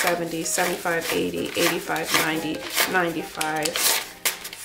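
Paper US dollar bills being counted by hand: quick crisp flicks and rubbing as notes are peeled off a stack one after another, under a soft voice.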